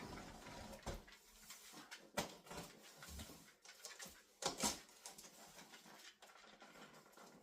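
Faint handling sounds of a bait boat's packaging being unboxed: scattered short rustles and knocks of cardboard and foam being opened and moved.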